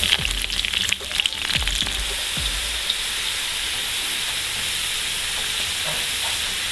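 Whole peeled potatoes frying in hot oil in a kazan on high heat: a steady sizzle, with a few sharper crackles in the first second or so.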